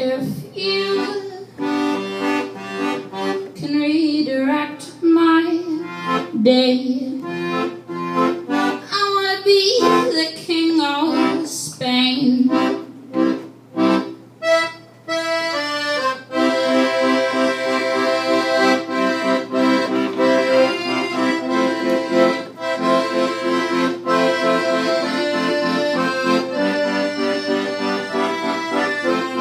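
Piano accordion playing an instrumental passage: short rhythmic chord stabs with gaps between them, changing about halfway to held chords.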